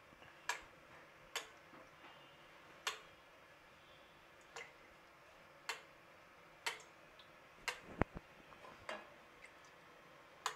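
Sharp, faint ticks and crackles at uneven spacing, roughly one a second, from a pot of oil heating on the stove, with one heavier knock about eight seconds in.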